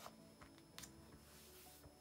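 Near silence, with two faint taps and a soft rustle from a book's paper page as it is turned over and settles flat.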